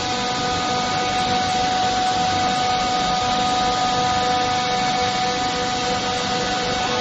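Steady droning hum: a few held tones over an even hiss, unchanging throughout.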